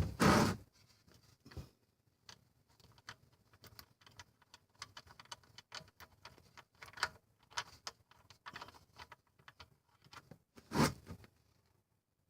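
Hand tools working on the car: scattered light metallic clicks and ticks, with a louder clatter at the start and another near the end.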